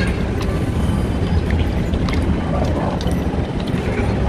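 Porous ceramic bio-rings, canister-filter media, rubbed and swished by hand in a bucket of water: light sloshing with scattered small clicks of ceramic on ceramic, over a steady low rumble.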